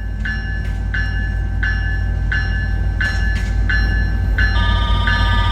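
A departing Tri-Rail commuter train's diesel locomotive rumbles deeply and grows louder as it pulls away. Over it a bell rings steadily, about three strikes every two seconds. About four and a half seconds in, the train's multi-note air horn starts sounding and holds.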